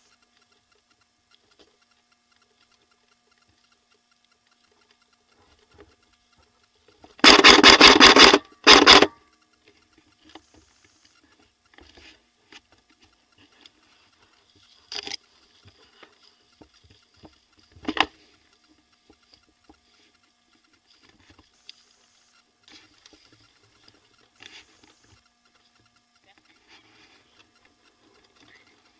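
A short rapid burst of fire from an airsoft electric gun about seven seconds in, a few shots a second, followed at once by a second brief burst. Scattered rustling and rubbing of movement fill the rest, with a couple of single sharp knocks later on.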